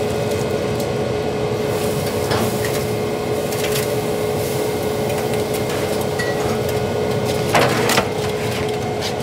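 Weber SmokeFire pellet grill running at 275°F with a steady fan hum and a thin steady whine. Light knocks come from handling meat on the grate, and a louder clatter comes about eight seconds in.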